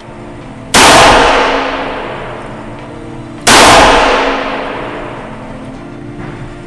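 Taurus 856 Executive Grade double-action .38 Special revolver firing two shots about three seconds apart, each sharp report ringing out slowly afterwards.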